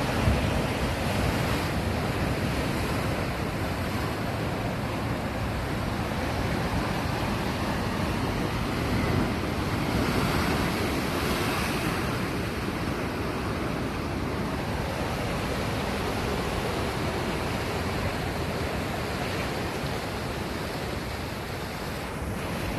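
Sea waves surging and washing on the shore in a continuous surf, swelling a little louder about ten seconds in.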